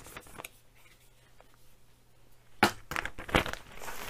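Mostly quiet, then about two and a half seconds in a few sharp crackles of clear plastic blister packaging being handled, with a light rustle near the end.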